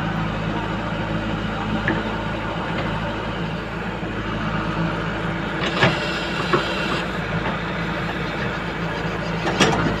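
JCB 3DX backhoe loader's diesel engine running steadily under load while the backhoe arm digs, with a few sharp clanks, the loudest about six seconds in and again near the end.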